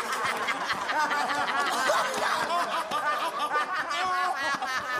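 A group of men laughing together, many voices overlapping in continuous, hearty laughter.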